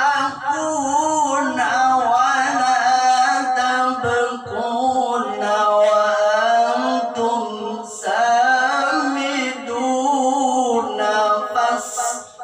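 A man reciting the Qur'an solo in the ornamented melodic qori style (tilawah), holding long wavering phrases. He breaks briefly for breath roughly every four seconds.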